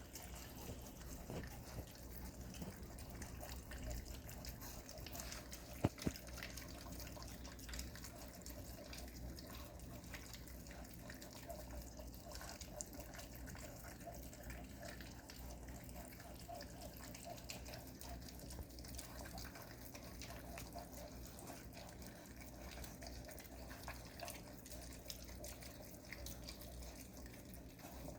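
Five-week-old puppies lapping goat milk and chewing ground beef: a steady run of quick, wet lapping and smacking clicks. A single sharp knock comes about six seconds in.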